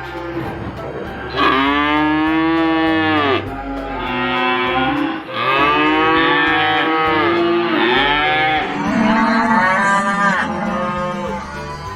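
Cow mooing: about four long, drawn-out moos in a row, each rising and falling in pitch, the last one lower. A low background music track runs underneath.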